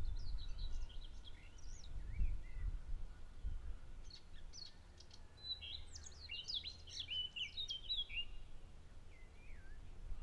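Small birds singing: short quick chirps and trills, with a busier run of song about halfway through, over a low, uneven rumble.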